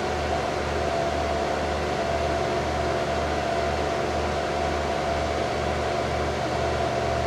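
Desktop PC running as it boots, its cooling fans and power supply whirring steadily with a faint steady tone and a low hum that pulses evenly.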